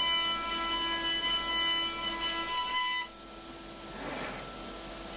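5-axis CNC mill's spindle running with a steady high whine of several fixed tones over a hiss while milling a wooden post. The whine cuts off suddenly about three seconds in, leaving a quieter hiss.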